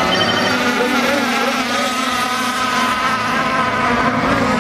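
Several radio-controlled racing catamarans running flat out just after the start, their motors making a high buzz with several wavering pitches at once.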